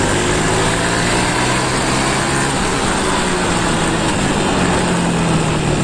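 Honda Pop 110i motorcycle's single-cylinder engine pulling steadily under way, its pitch slowly rising as the speed climbs, with wind rushing past. It runs smoothly without misfiring now that the faulty TPS sensor has been replaced.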